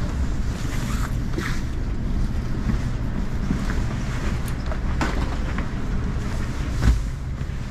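Steady low rumble of a vehicle in motion, with scattered faint clicks and knocks and one sharper knock near the end.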